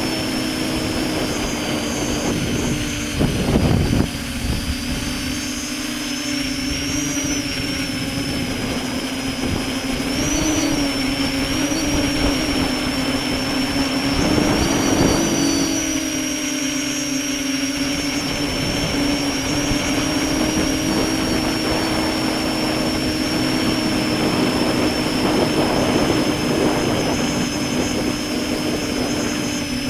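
Electric motors and propellers of a V-tail multirotor droning steadily in flight, a low hum with a high whine above it that shift slightly in pitch with throttle. Brief buffeting rumbles come a few seconds in and again about halfway through.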